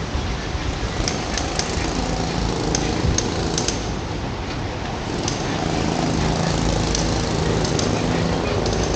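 A steady motor drone with a low hum, over a constant noisy rush, with scattered light ticks and clicks.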